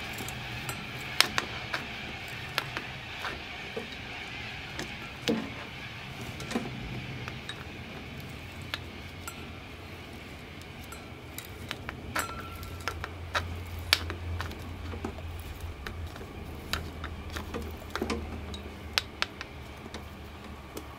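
Hand-tapping a set-screw hole in a pulley with a bar tap wrench: scattered sharp metallic clicks and clinks as the tap cuts and the wrench is turned and re-gripped.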